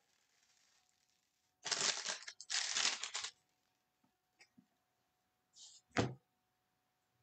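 A stack of trading cards handled in its torn plastic wrapper: two loud crinkling rustles, then a few light clicks and one sharp tap about six seconds in.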